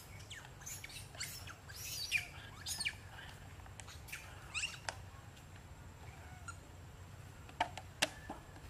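Short, high-pitched animal chirps and squeaks in scattered clusters, thickest in the first three seconds and again near the end, over a low steady hum.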